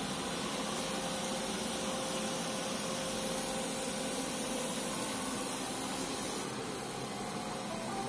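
Robot vacuum cleaners, an Aldi Easy Home robovac and an iRobot Roomba e5, running: a steady whirring motor noise with a faint hum.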